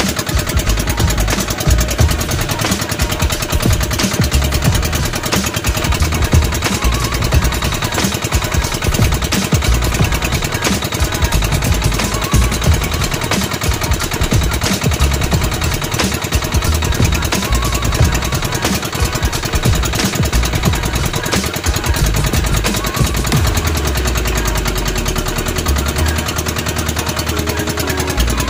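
Small boat engine running steadily on board, with a rapid, even putter of exhaust strokes.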